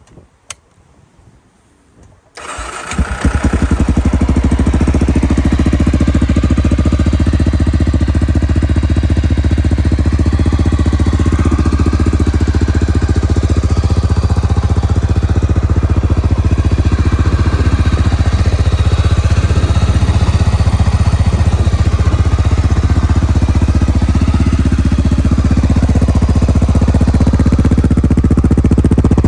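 Honda FMX650's single-cylinder engine breathing through twin Arrow exhausts. It starts about two seconds in after a click, builds over a second or so, then idles steadily.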